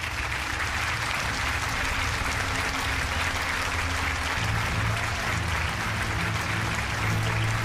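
Audience applauding steadily, with the act's music playing underneath.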